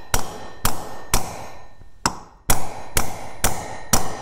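Hammer striking a punch set on a weed trimmer's clutch drum, driving the drum out of its cast metal hub: about eight sharp metallic taps, roughly two a second, with a pause a little over a second in, each ringing briefly.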